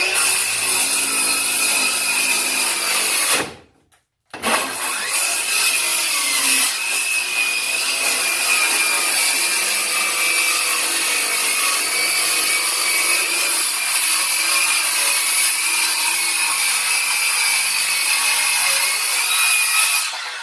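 Ryobi One+ 18V brushless cordless circular saw running and cutting through wood, a steady high whine over sawing noise. It stops dead for about a second near four seconds in, then runs on through a long cut and winds down at the end.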